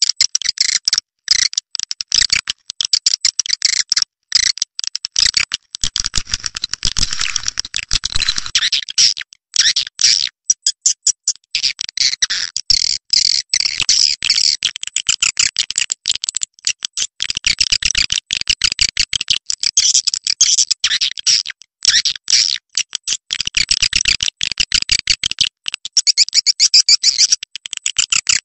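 Swiftlet call-to-roost lure recording: a dense, rapid chatter of many short chirps and twitters, with brief breaks and a short run of evenly spaced clicks near the middle. It is the call played to draw swiftlets into a swiftlet house to roost.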